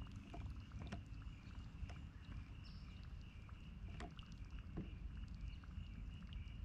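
Kayak fishing on calm water: a steady low rumble with a few faint knocks and clicks from the kayak and the spinning reel as a lure is reeled in, and a faint steady pulsing chirr in the background.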